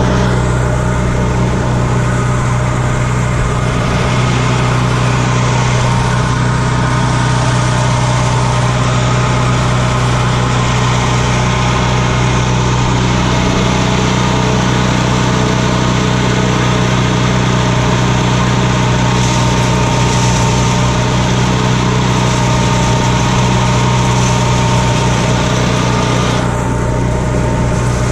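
Old wood chipper's small gasoline engine running steadily at a constant speed, easing off slightly near the end.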